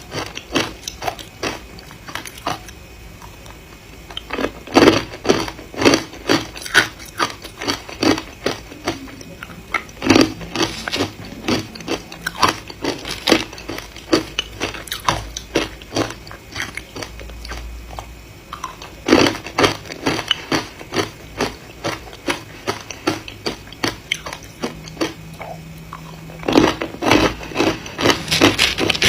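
A person biting and chewing ice close to the microphone: runs of sharp, crisp crunches with short pauses between bites.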